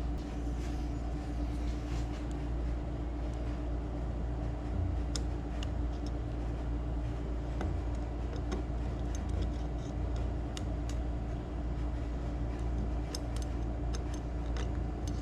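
A steady low hum with a constant tone runs throughout. Over it come scattered light ticks and scrapes of a metal pick working crud loose in the bottom of an Edelbrock 1406 carburetor.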